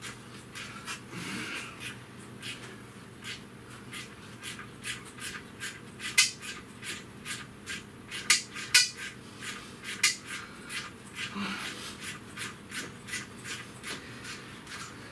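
A hand ratchet working a seized bolt loose: a long, irregular run of sharp clicks, a few of them louder. The bolt is locked up by salt corrosion on the aluminum.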